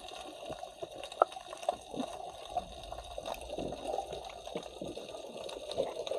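Underwater sound heard by a camera below the surface: muffled, steady water noise with scattered small pops and clicks.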